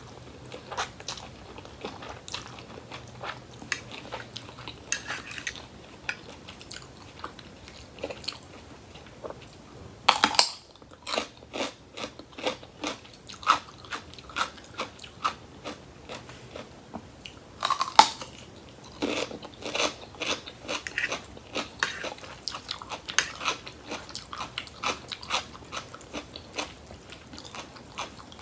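A person chewing and crunching crisp raw vegetables with a spicy rice-noodle and seafood salad close to the microphone: a steady run of short crunches, with two louder bursts of crunching about ten and eighteen seconds in.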